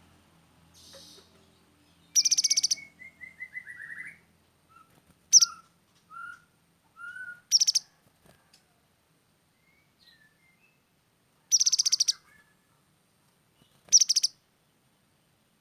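Grey-headed canary-flycatcher singing: five short, loud, high-pitched rapid trills a few seconds apart, with a run of softer, lower notes between the first few.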